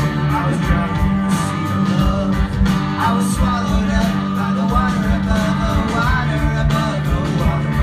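Live rock band playing with a singer: guitars, bass and a steady drum beat, heard from the audience.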